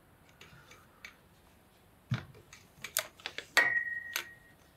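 Aluminium telescopic tripod being handled: a series of sharp clicks and knocks from its aluminium legs and plastic fittings. One harder knock about three and a half seconds in leaves a high ringing tone lasting about a second.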